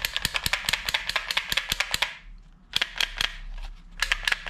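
Plastic toy pistol clicking as it is worked: a fast run of sharp clicks, about seven a second, for about two seconds, then three separate clicks and another short run near the end.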